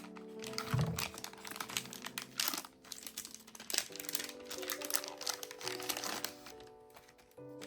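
Crinkling and rustling of something being handled, most likely haul packaging, over soft background piano music; the crinkling dies away near the end.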